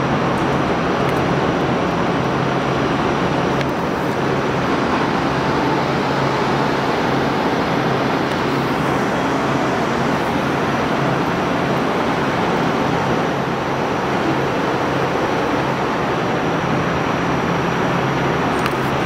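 Steady hum and rumble of Bombardier Flexity Outlook streetcars standing at an underground platform, an even noise with a faint low drone and no sudden events.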